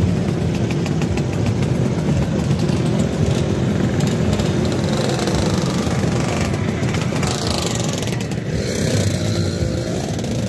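Many Vespa scooter engines running together, a steady dense engine drone with no breaks.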